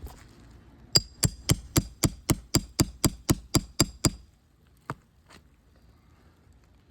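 Roofing hammer rapidly tapping a nail puller with ringing metal-on-metal strikes, about four a second for some three seconds, driving it under a shingle nail on the seal line to pull it, then one more single tap.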